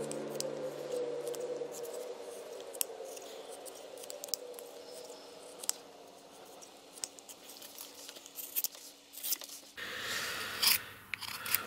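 Carving knife slicing thin shavings from a small strip of wood in short, crisp, irregular cuts, a little denser and louder near the end. Background music fades out in the first two seconds.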